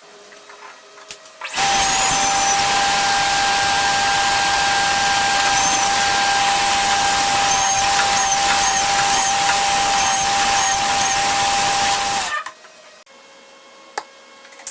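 A woodworking shop tool running steadily with a loud hiss and a constant whine. It starts abruptly about a second and a half in and cuts off about ten seconds later.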